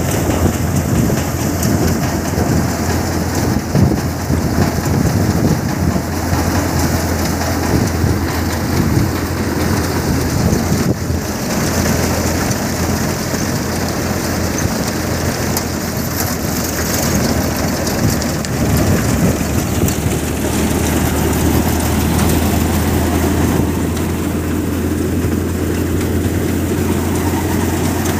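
Tractor-driven multi-crop thresher running steadily while threshing mung bean plants. A loud, even mechanical din with a dense hiss of crop and seed passing through the machine sits over a steady low engine hum.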